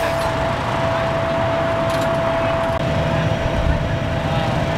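An engine running steadily with a constant high whine, a deeper rumble joining about three seconds in.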